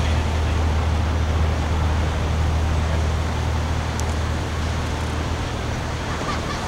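Steady low engine drone of a yakatabune houseboat, easing off slightly near the end.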